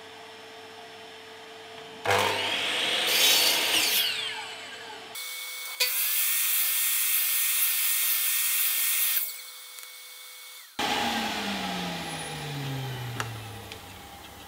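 Sliding compound mitre saw running and cutting a dado in a wooden board in two loud passes, each a shallow cut held by the depth stop. Near the end the blade's motor winds down with a falling whine.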